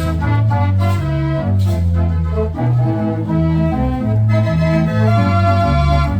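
Organ music playing at a steady volume, a bass line stepping from note to note in a regular rhythm under sustained chords.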